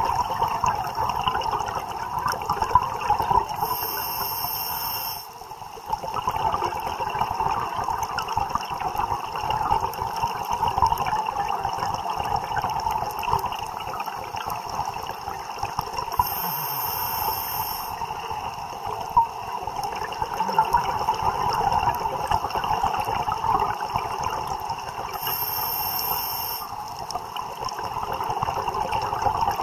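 Underwater ambience heard through a diving camera: a steady crackling hiss, with a short change in the hiss three times, about ten seconds apart.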